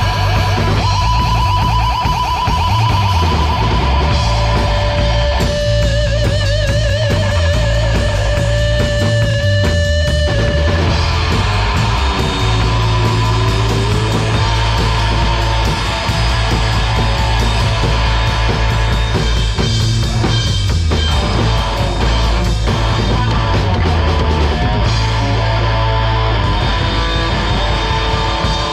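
Live rock band playing loudly: electric guitar holding long, wavering vibrato notes over drums and a heavy low end.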